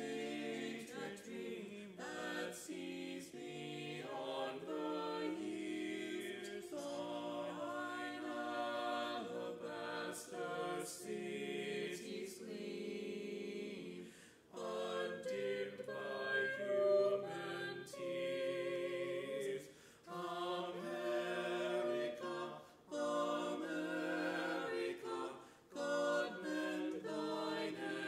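Small vocal ensemble of three men and a woman singing unaccompanied in close harmony, a cappella, phrase by phrase with brief breaths between phrases in the second half.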